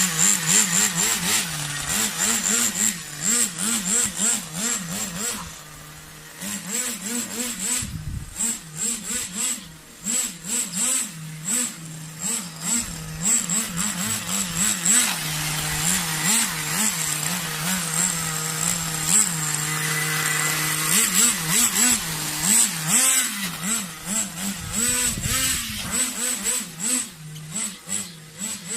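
Small nitro glow engine of an RC car running and being revved over and over, its pitch rising and falling as the car is driven; it drops briefly quieter around six and ten seconds in.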